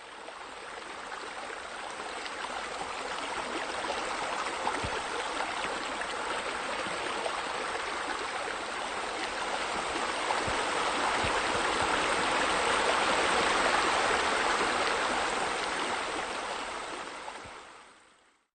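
Steady rushing hiss that swells in over the first few seconds, grows loudest past the middle and fades out near the end, with a few faint low knocks.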